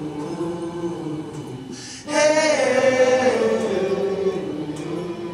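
Voices singing a slow, drawn-out chant in long held notes. One phrase fades out, and about two seconds in a louder phrase begins high and slides down in pitch as it is held and fades.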